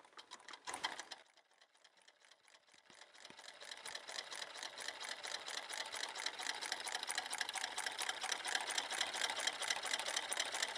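Home-made tin-can Stirling engine running with a fast, even mechanical clatter from its wire crank and linkage. After the flywheel is started by hand, the clatter builds in speed and loudness over the first few seconds, then holds steady.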